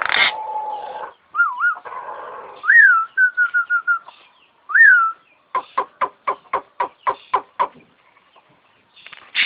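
Jalak (starling) singing: a harsh chattering stretch, then clear whistled notes that rise and fall and a quick trill of short repeated notes. About halfway in comes a run of about a dozen sharp, clipped notes at roughly five a second, then the song goes quieter.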